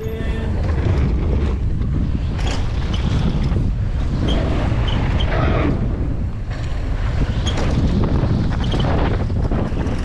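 Wind buffeting a helmet- or body-mounted GoPro's microphone during a fast mountain-bike run down a bike-park trail, a steady loud rush. A few small knocks and rattles from the bike sound through it.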